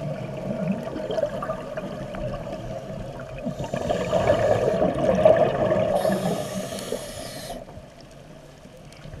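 Scuba regulator breathing heard underwater: two airy breaths, about four and six seconds in, the second one longer, over gurgling water and a steady drone.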